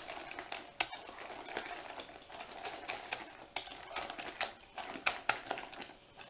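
Spatula stirring thick brownie batter with chopped pecans in a mixing bowl: irregular light clicks and scrapes against the bowl.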